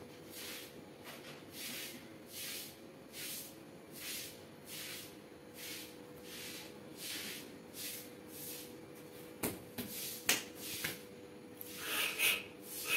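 Soft, even breathing close by, one breath about every 0.8 s, over a faint steady hum. Two sharp clicks come a little past halfway, and a louder sniff near the end.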